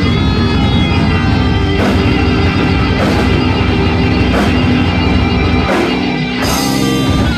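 Loud rock music with distorted electric guitar and drums, with cymbal strokes about every second or so. The low end thins out shortly before a bright cymbal crash near the end.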